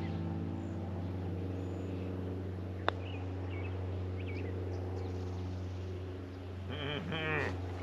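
A golf club strikes a ball once with a sharp click about three seconds in, against a steady low engine hum and scattered bird chirps. A short chattering call comes near the end.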